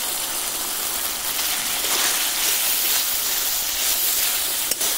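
Spice paste sizzling in hot oil in a metal wok while a metal spatula stirs it: a steady frying hiss, with one sharp knock of the spatula on the pan near the end. The masala is fully fried, the oil having separated from it.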